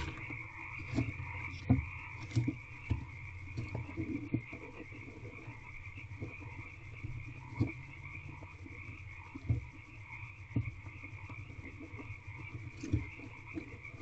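Barn owl shifting and settling in her nest box, her feet and body knocking and scraping on the wooden floor and shavings in scattered, irregular thumps. Under it runs a steady high-pitched background drone.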